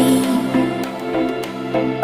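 Background music: sustained instrumental tones with no voice.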